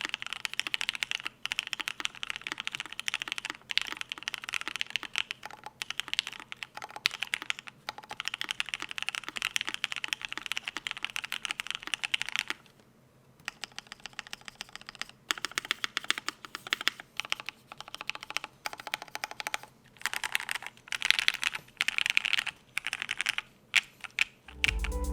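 Typing on a Cannonkeys Savage65 mechanical keyboard with lubed Alpaca linear switches on an FR4 plate: a fast, steady run of clacky keystrokes with a brief pause about halfway through.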